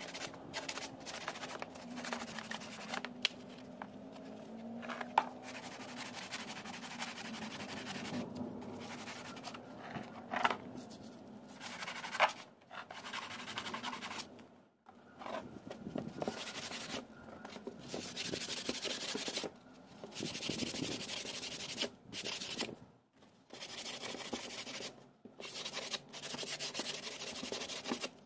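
Sandpaper rubbed back and forth by hand along the trimmed edge of a fiberglass fairing part to smooth it. The scratchy strokes come in runs broken by short pauses.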